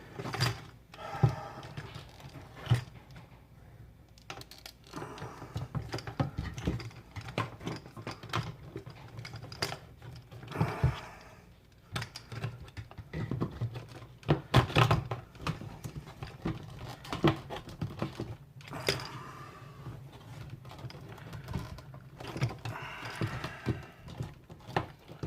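Irregular clicks, taps and knocks of small plastic and metal parts being handled while the fuel pump and sending unit, with its screen and O-ring, are fitted into the gas tank.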